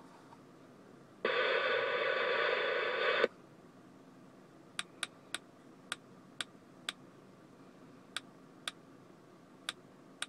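Cobra 19 Ultra III CB radio's speaker giving a burst of static about two seconds long that cuts off sharply, then a string of about ten short, sharp clicks at uneven spacing.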